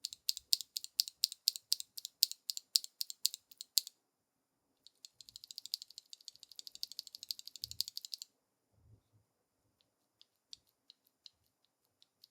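Durock Black Lotus mechanical keyboard switches clacking as they are handled: a fast even run of small plastic clicks, about seven a second, then a denser, quicker rattle of clicks, ending in a few scattered ticks.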